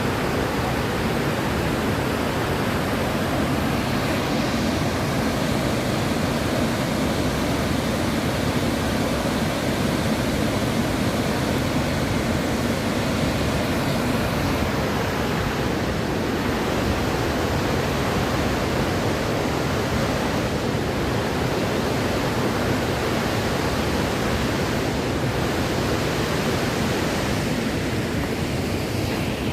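Bow Falls on the Bow River: a waterfall's rushing water, steady and deafening.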